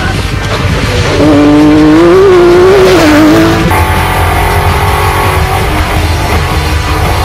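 Off-road race car engine running hard, its pitch wavering up and down, over background music; the sound cuts abruptly to a steadier tone about three and a half seconds in.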